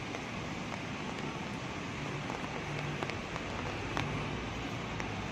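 Steady rain falling on wet paving, an even hiss with a few sharp drop ticks scattered through it.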